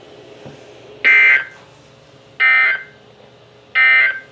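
NOAA Weather Radio SAME end-of-message code, played through a weather radio's speaker: three short bursts of buzzy two-pitch data tones, evenly spaced about a second and a half apart. They mark the end of the warning broadcast.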